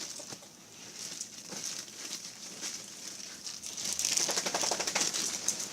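Slime being squeezed and worked in the hands, making fine crackling clicks that thicken and get louder over the last two seconds. The slime is getting hard again.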